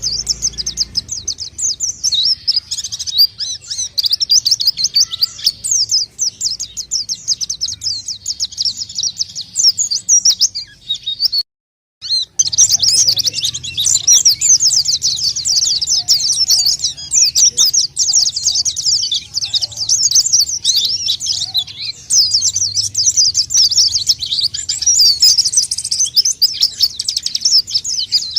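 White-eyes (pleci) singing nonstop: a dense, rapid stream of high twittering chirps. The sound cuts out completely for about half a second roughly twelve seconds in, then resumes.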